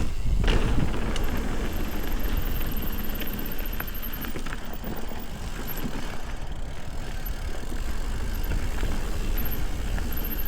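Ibis Ripley mountain bike rolling over a dirt trail: steady tyre and drivetrain rattle with low wind rumble on the camera microphone.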